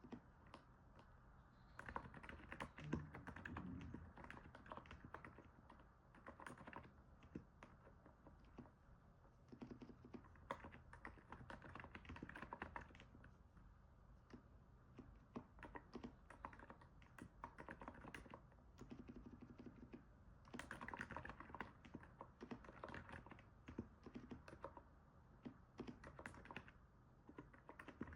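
Faint typing on a NiZ 68 Pro capacitive keyboard: runs of soft key presses with short pauses between them.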